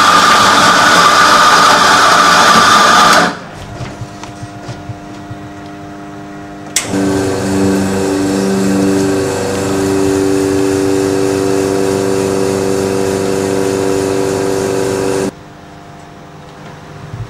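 A loud whirring machine noise runs for about three seconds and cuts off. About seven seconds in, a click starts the espresso machine's pump humming for about eight seconds while the shot runs into the cup. The hum wavers at first, then settles steady, and stops abruptly near the end.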